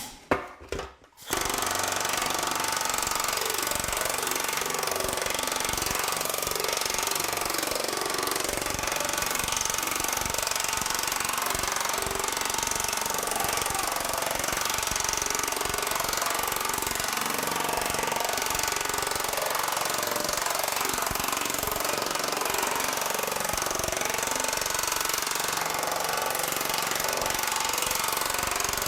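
TM Technologies pneumatic power hammer running continuously, its dies striking rapidly and evenly as a corner of 0.050 in 1100 aluminum sheet is worked down. The hammering starts about a second in and holds at a steady level.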